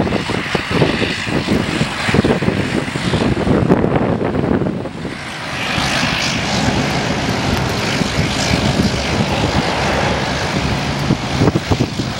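Twin-engine jet airliner's engines during its landing and rollout on the runway, a steady loud rumble that turns brighter and hissier about halfway through. Gusty wind buffets the microphone.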